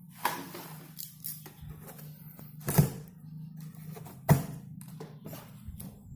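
Knocks, thumps and scrapes of an air conditioner's outdoor unit and its packaging being handled during unboxing, with two louder thumps about three and four seconds in, over a steady low hum.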